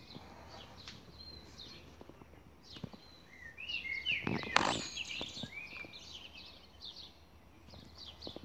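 Garden birds chirping and calling repeatedly in short high notes and glides, with a short loud scuffling noise about four and a half seconds in.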